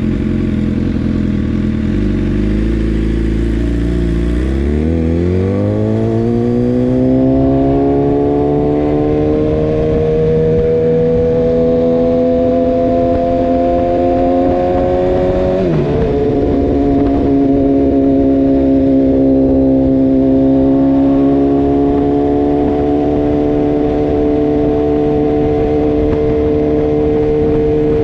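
2018 BMW S1000R inline-four running through a full Akrapovič exhaust, idling and then pulling away. The engine note rises steadily for several seconds, drops briefly with an upshift about halfway through, and then holds steady at cruising speed.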